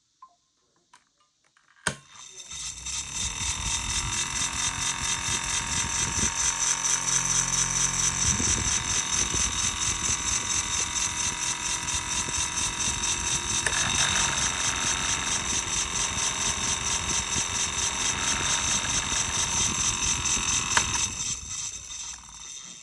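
Small electric rainbow fan switched on with a click, spinning up over about two seconds into a steady whir with a fast regular pulse, then clicked off near the end and winding down.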